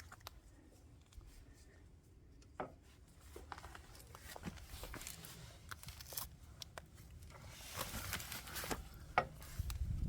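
Scattered small clicks and rustling, scraping handling noise as the centre stand's circlip and washer are worked into place, with a longer stretch of rustling near the end.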